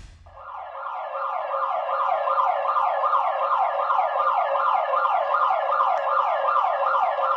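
Electronic alarm siren of a daycare building, sounding in rapid falling sweeps, about four a second, that start a moment in and repeat without a break.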